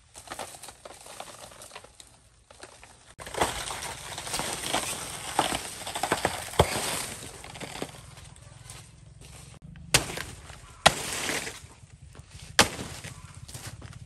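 A banana plant being pulled down and broken apart: rustling and tearing of its large leaves and fibrous stem, with sharp snaps as it gives way. In the second half come three loud, sharp cracks.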